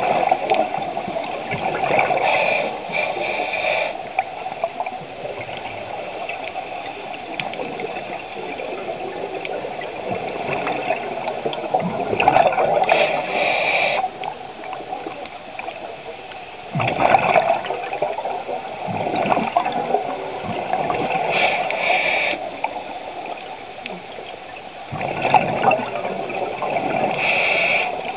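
Scuba regulator breathing underwater: several slow breaths a few seconds apart, each a hiss of inhaled air and a gurgling rush of exhaled bubbles.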